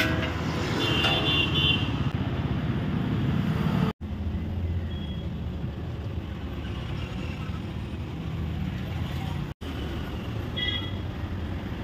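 Roadside traffic ambience: a steady low rumble of passing vehicles, with a few short high-pitched chirps or toots. It drops out briefly twice.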